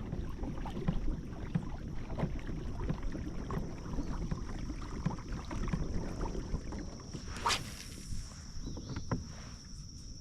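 Kayak on the water: small knocks of paddle and hull over water and wind noise, with one sharp click about seven and a half seconds in, under a steady high-pitched drone.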